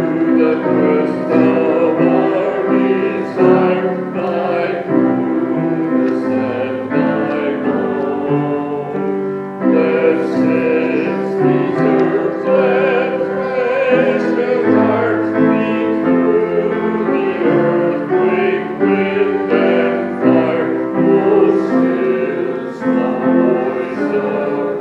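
Church music: voices singing with piano accompaniment, moving steadily from chord to chord.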